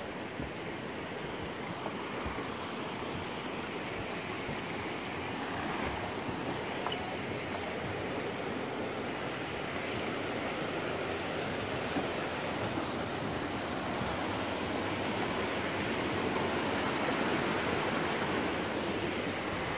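Steady rush of flowing water, growing a little louder a few seconds before the end.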